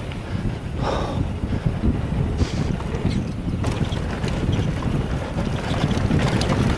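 Wind buffeting the microphone of a mountain bike rider on a downhill run, a steady low rumble, with scattered sharp clicks and rattles from the bike and tyres on the trail.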